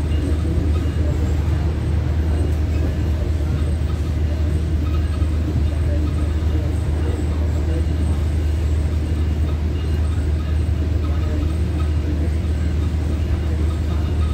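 Tri-Rail commuter train in motion, heard from inside the passenger coach: a steady low drone with even running noise over it.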